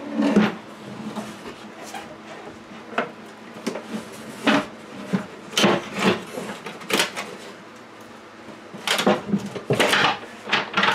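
Plywood box on cheap low-profile ball bearing rollers being worked into a corner cabinet: the rollers rattle and rumble noisily over the cabinet floor, with wooden knocks and scrapes in irregular bursts.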